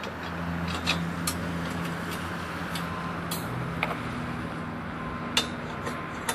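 A motor engine running steadily in the background, a low pitched hum, with a few sharp metallic clicks and clinks, the clearest about a second in and near the five-second mark.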